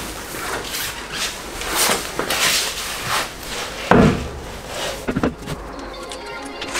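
Handling noises from bodywork on a car: scraping and rustling with scattered knocks, and one loud thump about four seconds in, followed by a few quick knocks.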